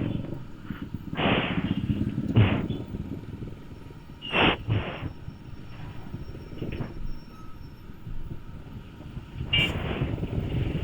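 Motorcycle riding in traffic, heard through the camera's built-in microphone: a steady low rumble of engine and road noise, with four short bursts of noise over it.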